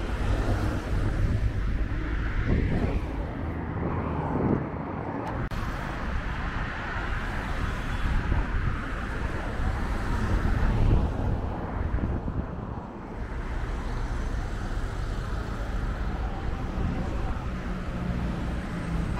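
Road traffic passing close by on a multi-lane city highway: a continuous rush of tyres and engines that swells louder as vehicles go past, most strongly about halfway through.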